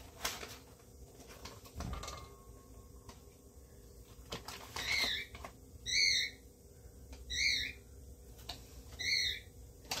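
A bird calling: four short, high calls spread over the second half, each about a third of a second long.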